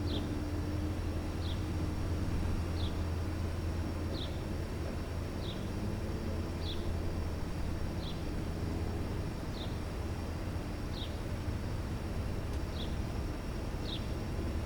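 A small bird calling a single short, high chip note over and over, about once every 1.3 seconds, over a steady low hum.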